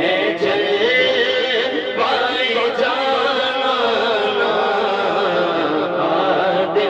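A man singing a naat, an Urdu devotional poem, into a microphone in long held notes that bend and waver in pitch.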